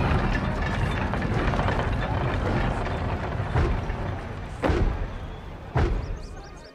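Film soundtrack: a dense wash of noise with a heavy low rumble, broken by three booming hits about a second apart in the second half, then fading.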